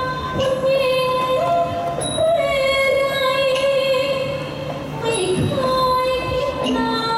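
A woman singing into a microphone over a stage sound system, holding long notes that slide and step between pitches.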